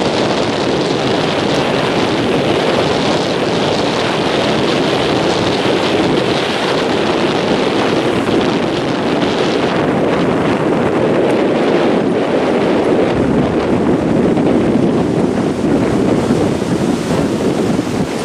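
Wind buffeting the microphone over a steady wash of surf on a shallow coral reef flat.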